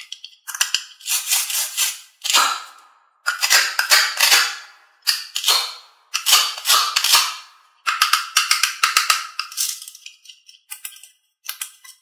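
A string of short rattling, clattering bursts, each a dense run of rapid clicks that dies away, separated by brief silences and growing weaker and sparser near the end.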